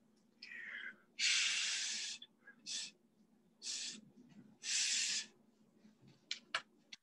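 Breath blown in a series of hissing puffs across wet paint to push it around the surface. The longest and loudest puff comes about a second in, and a few sharp clicks follow near the end.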